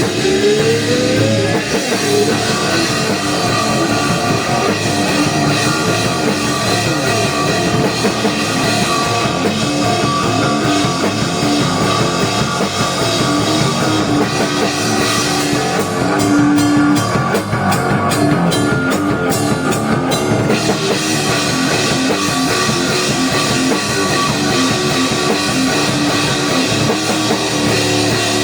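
Rock band playing live: drum kit, electric guitars and bass guitar in a heavy rock song, with a note sliding upward at the start.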